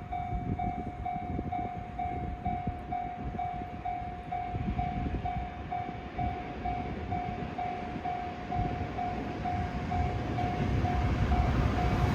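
Level crossing warning bell ringing steadily, about two dings a second. Under it, the rumble of an approaching train, an EF510 electric locomotive hauling a delivery train, grows louder near the end.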